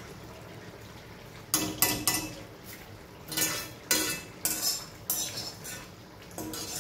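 A wire-mesh spider strainer clinking and scraping against an aluminium kadai as fried curry leaves are scooped out of the oil. There is a run of sharp metal clinks at uneven intervals, starting about a second and a half in.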